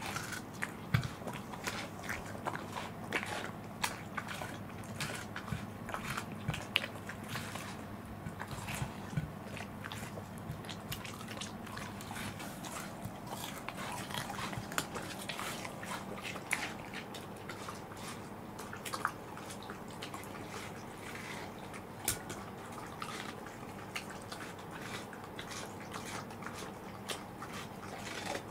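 Two Welsh corgis biting and chewing watermelon slices off plates: many short, irregular wet crunches of flesh and rind.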